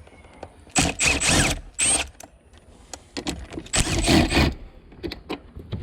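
Plastic interior trim of the centre console scraping and squeaking as it is pulled loose, in three bursts, with a few sharp clicks between them.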